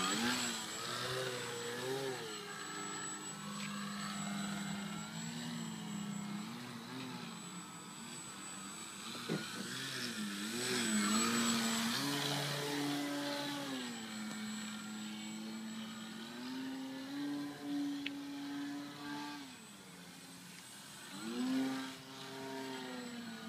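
Motor and propeller of a remote-control flying lawnmower model buzzing in flight, the pitch gliding up and down and holding at different levels as the throttle is worked through manoeuvres.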